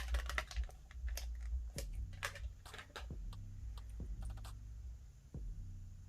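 Small metal planner clips being handled, giving irregular light clicks and clinks, over a low steady hum.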